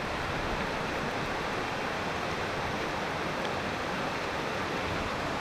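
A waterfall rushing steadily: a continuous, even hiss of falling water.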